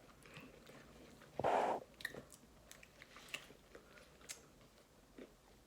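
Close-up chewing and biting of fast food, with one louder short noisy sound about a second and a half in and small scattered clicks after it.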